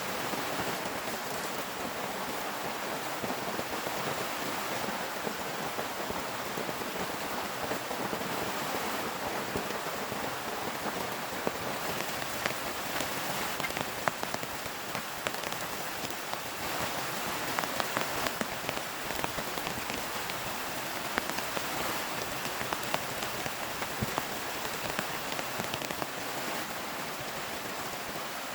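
Heavy rain falling steadily, with scattered louder drop impacts through the middle stretch.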